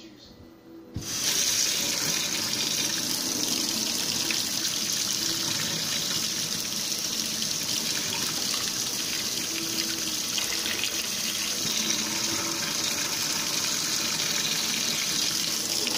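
Kitchen faucet turned on about a second in, then a steady stream of tap water running and splashing into a stainless steel sink.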